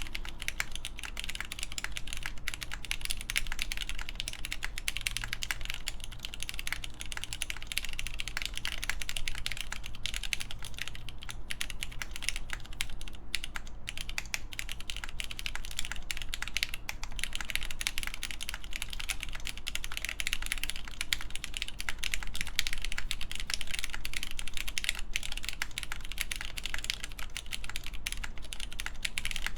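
Continuous typing on an AKB Reverie mechanical keyboard with lubed Cherry MX Black clear-top (Nixie) linear switches, a full polycarbonate plate and GMK keycaps: a dense, steady run of keystrokes without pauses.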